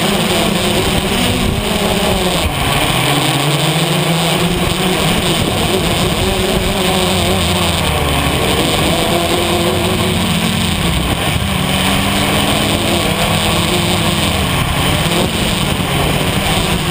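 Electric motors and propellers of a 450 mm quadcopter whirring loudly, heard from a camera mounted on its frame. The pitch of the hum keeps rising and falling as the throttle changes.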